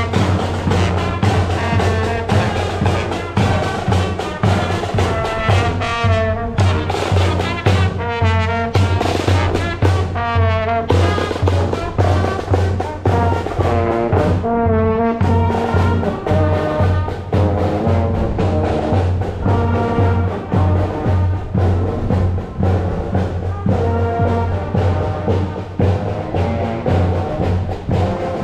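Marching brass band playing a march on the move, with a sousaphone close by and a steady drum beat under the brass.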